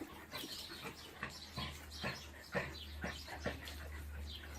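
A dog making short, noisy sounds, roughly two a second and irregularly spaced, over a steady low hum.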